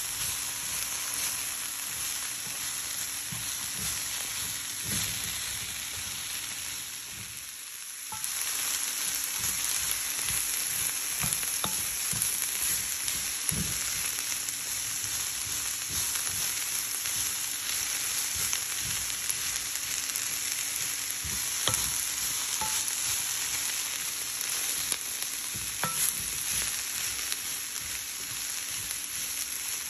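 Shredded cabbage sizzling as it stir-fries in a non-stick pan, with a wooden spatula scraping and knocking against the pan as it is tossed. The sizzle dips briefly about a quarter of the way in, then comes back stronger.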